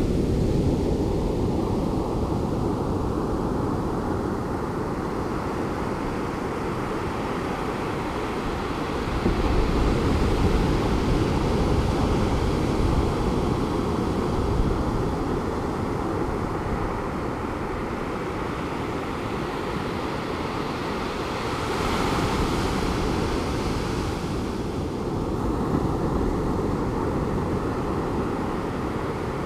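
Pacific Ocean surf breaking and washing on the beach, a steady rush that swells as waves break about a third of the way in and again near the end, with some wind on the microphone.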